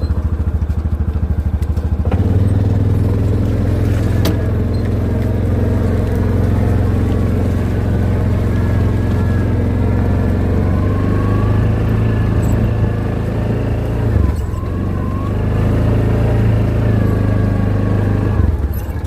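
A vehicle engine running steadily with a deep, even drone, easing off briefly twice in the second half.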